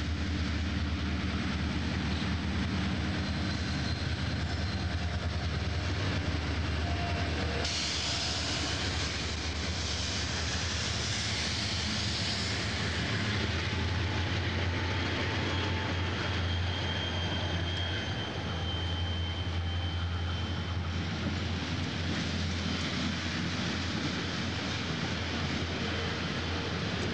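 CSX diesel-electric freight locomotives passing close by: a steady low engine drone with rumbling wheel and rail noise, growing brighter and louder from about eight seconds in as the units come alongside. A thin high whine is heard for a few seconds past the middle.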